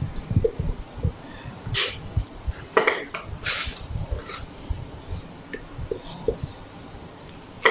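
Spatula scraping soft almond cream out of a stainless steel mixing bowl into a piping bag: several short scrapes in the first half, with light knocks of the bowl and utensils.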